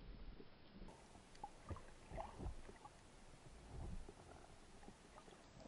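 Faint underwater sound picked up by a camera housing: a low rumble of moving water with scattered small clicks and knocks, a little louder about two seconds in and again about four seconds in.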